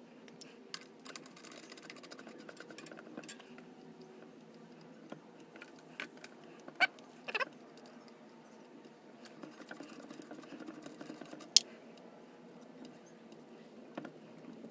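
Scattered light clicks and rustling from handling small objects, with a few sharper clicks and one loud single click about two-thirds of the way through.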